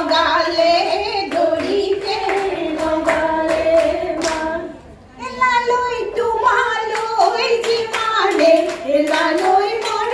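Women singing a Jeng Bihu song into a microphone, with the group clapping hands in time. The singing breaks off for a moment about halfway through, then resumes.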